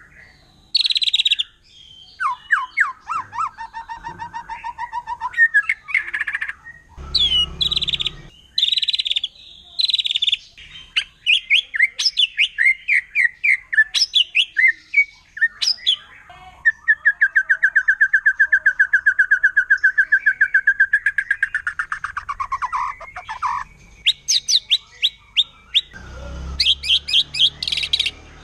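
White-rumped shama singing a long, varied song: loud whistled phrases alternating with rapid chattering trills, and a long, even, fast trill lasting about six seconds past the middle. Two brief low rumbling noises cut in, one early and one near the end.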